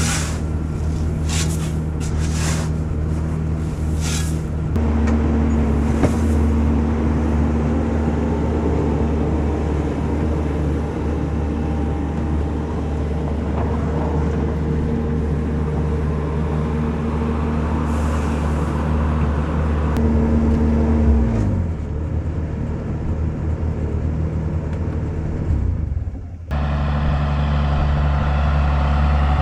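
Farm tractor engine running steadily. Its pitch steps up about five seconds in, drops as the engine slows around twenty-one seconds in, and cuts abruptly to a similar steady engine sound near the end.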